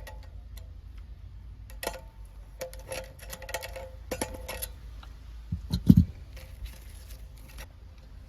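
Scattered clicks and light metallic clinks of pliers gripping and turning a stuck chandelier bulb socket loose, with two louder low knocks about six seconds in.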